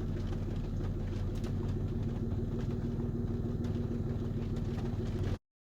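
Car engine running steadily, a low even hum heard from inside the cabin; it cuts off suddenly about five seconds in.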